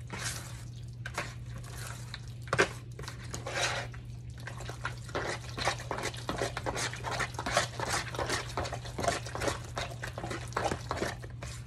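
Thick ground beef, Rotel and queso dip being stirred in a plastic bowl: repeated wet squelching strokes with the utensil scraping the bowl, settling into about two strokes a second in the second half. One sharper knock stands out about two and a half seconds in.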